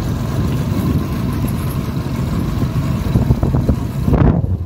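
Motorcycle engine running as the bike rides along, with steady wind rumble on the microphone.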